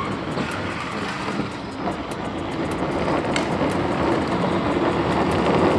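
A Power Wheels ride-on toy quad bike driving along the street on an 18-volt drill battery. Its electric drive motors and hard plastic wheels make a steady, noisy running sound that grows a little louder near the end.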